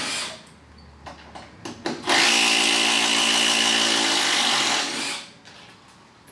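Kobalt 24-volt brushless compact one-handed reciprocating saw run by its trigger with no load: a steady motor whine stops just after the start, a few light clicks follow, then a second run of about three seconds that cuts off.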